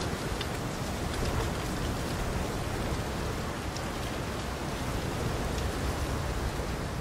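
Steady rain falling: a dense, even hiss of rain with a few separate drop ticks standing out.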